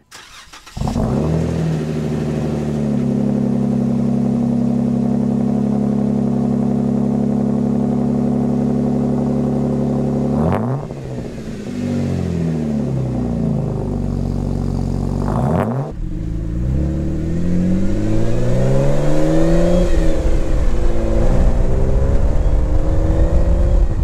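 Jeep Wrangler JKU's 3.6-litre V6 through a Pypes high-clearance cat-back exhaust. The engine catches about a second in and idles steadily. Twice in the middle it is blipped, the pitch jumping and falling back. Near the end the engine note rises and falls repeatedly and grows louder.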